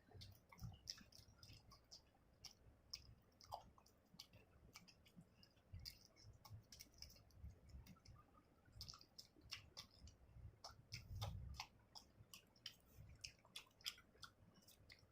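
A person chewing food with many short, wet mouth clicks and smacks, and soft low thuds from the chewing, heaviest about two-thirds of the way in.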